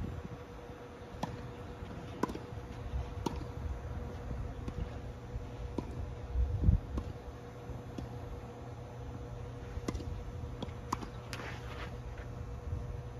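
Tennis rally: balls struck with rackets and bouncing on the court, heard as sharp pocks roughly a second apart. Under them is a low wind rumble on the microphone and a steady hum, with a short scrape near the end.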